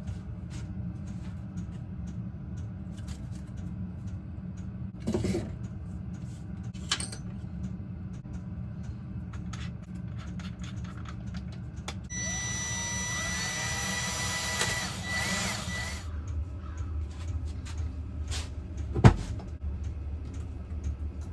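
A handheld power tool runs for about four seconds with a steady high whine over a low hum, then stops. A short knock comes about five seconds in, and a sharp, louder knock comes near the end.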